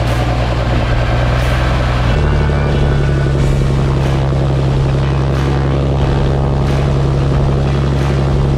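Both turbocharged Lycoming 541 engines of a twin-engine piston airplane running on the ground, propellers turning, in a steady drone. The engine note steps up to a higher pitch about two seconds in.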